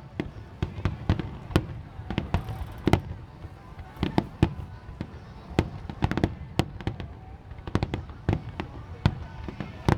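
Aerial fireworks shells bursting in quick, irregular succession: many sharp bangs and booms, several close together around the middle and one loud bang near the end.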